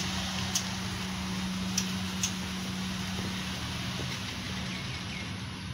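A car driving slowly away over a steady low hum of road ambience, with a few light clicks in the first couple of seconds.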